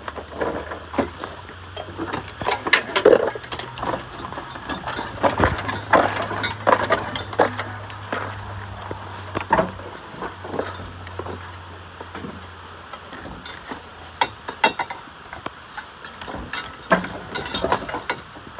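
Scattered metal clinks, knocks and handling noises from hands and tools working on a removed engine and transmission hanging from a chain, over a low steady hum that stops about fourteen seconds in.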